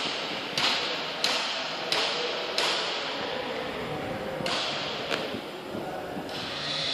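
Sharp bursts of hissing compressed air, one after another, each starting suddenly and fading within about half a second, with a longer pause midway. The pattern is typical of a pulse-jet bag filter's cleaning valves firing in sequence.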